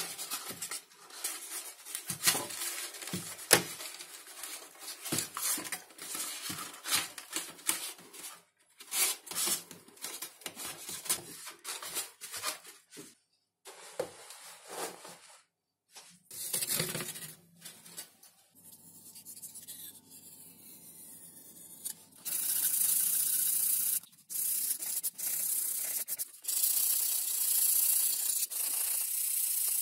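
Hand work on foam and balsa model-aircraft parts: irregular rubbing and scraping strokes with sharp taps, then, about two-thirds of the way in, a loud steady hiss in three long stretches broken by short gaps.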